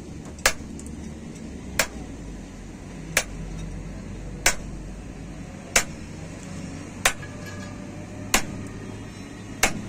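Steel hammer striking a pin set in the top of a Hino truck's front steering knuckle, driving the king pin home: eight sharp metallic blows with a brief ring, evenly spaced a little over a second apart.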